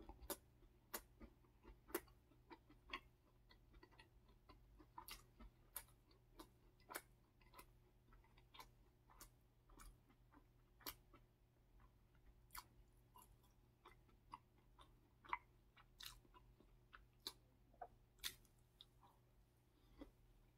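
A person chewing a soft blueberry-topped waffle close to the microphone: faint, irregular sharp mouth clicks and smacks, several a second.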